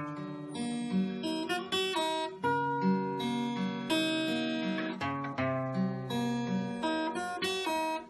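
Background music: an acoustic guitar plucking a melody over low bass notes.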